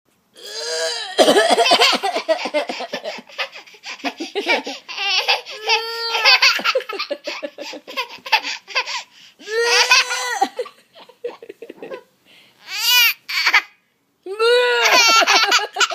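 A young child laughing hard in repeated high-pitched bouts of rapid 'ha-ha' pulses, with short breaks between bouts.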